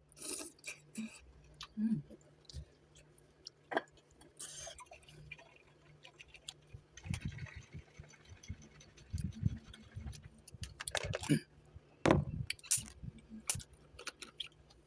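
Close-miked eating of noodles: quiet chewing and mouth sounds with many small scattered clicks and a few short noisy bursts.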